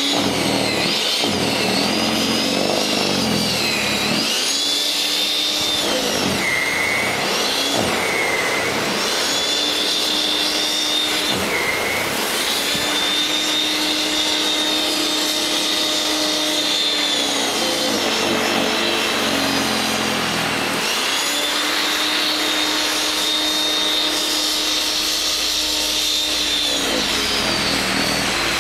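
WEN 5662 13.5-amp electric snow thrower running as it clears heavy snow, a steady electric motor and auger whine. Its pitch dips and recovers several times as it bites into the snow, a sign of the motor straining under the load.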